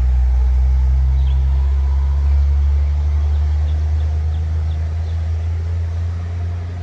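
Heavy truck's diesel engine pulling slowly uphill under load: a loud, steady deep drone with the turbo howling, easing off slightly near the end.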